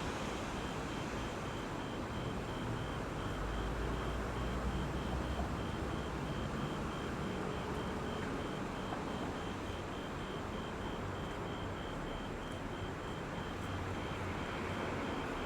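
Road traffic going by: steady tyre and engine noise from passing cars, with a deeper rumble of a heavier vehicle about four seconds in. Under it, a faint high beep repeats about three times a second throughout.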